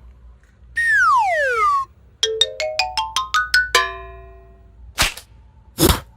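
Cartoon sound effects: a falling whistle-like glide, then a quick rising run of about nine xylophone-like notes, then two short whooshes near the end.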